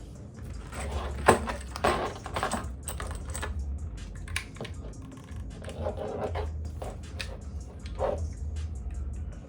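Rounds being pressed one at a time by hand into an American Tactical 60-round AR-15 magazine: an irregular run of clicks and snaps.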